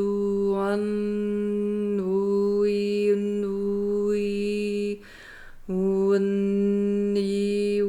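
A woman's voice chanting a long sustained tone on one steady pitch, the vowel sound slowly shifting as shamanic sacred sound. About five seconds in it breaks for a quick breath, then resumes on the same note.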